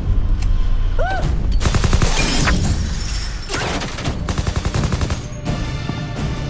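Rapid automatic gunfire, a dense volley of shots with bullets striking the sheet-metal body of an SUV. It starts about a second and a half in and eases off near the end.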